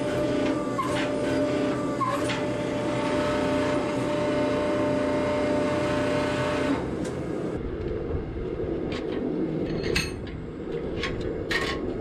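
Forging press running as it squeezes a glowing steel billet between its dies: a steady machine hum with a few held tones and scattered sharp clicks. About seven seconds in the tones stop, leaving a lower rumble with occasional clicks.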